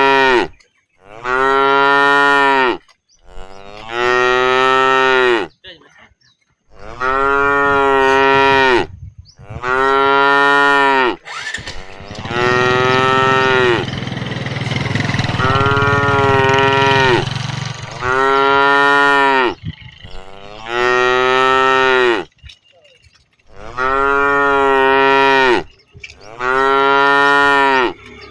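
Cows mooing over and over: about a dozen loud, drawn-out moos, roughly one every two seconds, with calls running together around the middle as more than one cow joins in.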